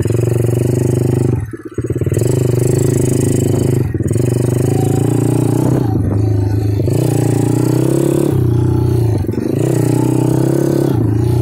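Kawasaki KLX pit bike with a BBR 143 cc big-bore single-cylinder engine running under way, heard from on the bike. The engine note holds fairly steady, dropping off sharply about a second and a half in and wavering a few more times as the throttle is eased and reopened.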